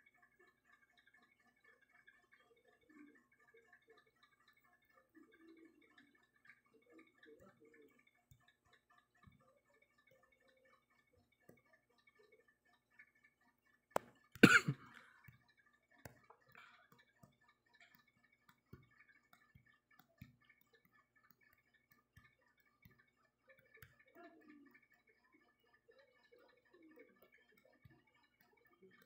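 Very quiet room tone with a faint steady high hum. About halfway through comes a single sharp click, then a loud, short burst of noise of about half a second.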